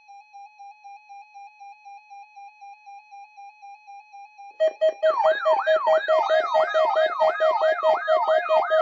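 Electronic weather-radio alert tones: a quiet, fast-pulsing beep, then about four and a half seconds in a loud siren-like alarm starts, a rising sweep repeated about two and a half times a second over a pulsing tone.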